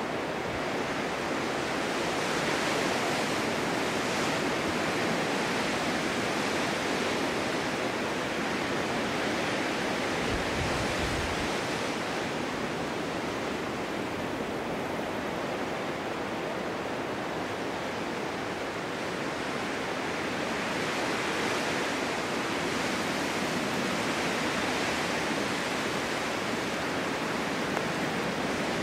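Snowstorm wind blowing steadily through a snow-covered forest, an even rushing noise that swells and eases gently.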